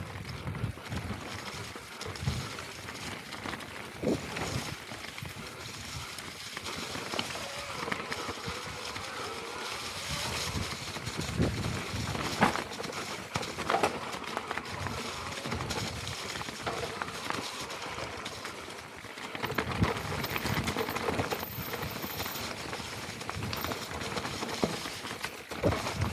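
Mountain bike rolling fast down a rocky, leaf-strewn trail: a steady rush of tyres over loose stones and leaves, broken by frequent knocks and rattles as the bike hits rocks.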